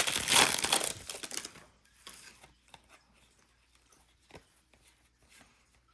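Plastic trading-card pack wrapper crinkling and tearing as it is ripped open, fading out about a second and a half in, followed by a few faint clicks of cards being handled.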